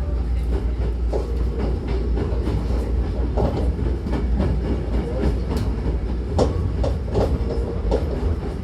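Hankyu 9000-series train running, heard from inside the car: a steady low rumble with irregular sharp clicks of the wheels passing over rail joints and points.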